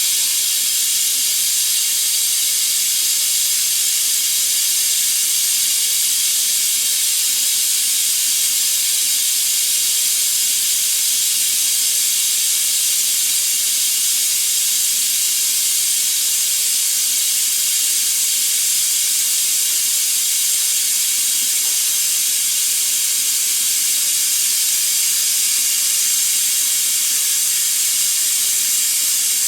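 Pneumatic vacuum brake bleeder running on compressed air: a steady high hiss of exhausting air as it draws brake fluid and trapped air out through the front brake bleeder valve. The front brake system still holds air.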